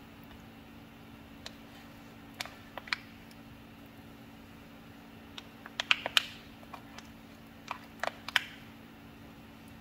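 A small wooden spoon clicking, tapping and scraping against a plastic container and a plate as mashed avocado is scooped and spread onto toast: scattered light clicks, bunched in two clusters, the loudest in the middle and near the end, over a faint steady low hum.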